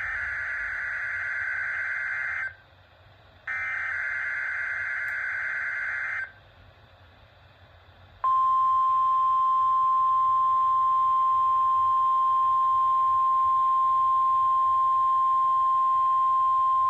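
NOAA Weather Radio weekly test signals: two bursts of SAME digital header tones, a warbling data screech about two and a half seconds each, a second apart. After a short pause comes the steady single-pitch 1050 Hz warning alarm tone, held for about nine seconds.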